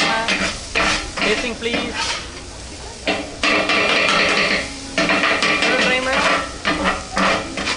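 Metal spatulas scraping and clattering unevenly on a hot flat griddle while food sizzles.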